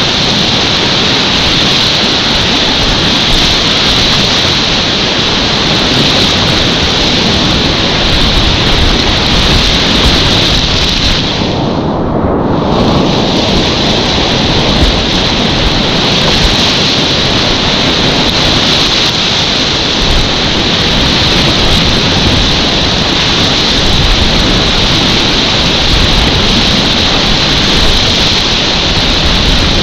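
Loud, steady rushing of class 4 creek whitewater at about 500 cfs, heard up close from a kayak running the rapids. The sound turns briefly muffled about twelve seconds in.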